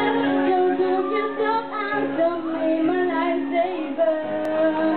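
Teenage girls singing a song into microphones, accompanied by held chords on an electric keyboard.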